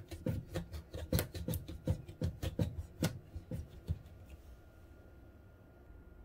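Kitchen knife cutting lengthwise through a raw spaghetti squash on a wooden cutting board: a run of sharp, irregular cracking clicks as the blade works through the hard rind. It stops about four seconds in.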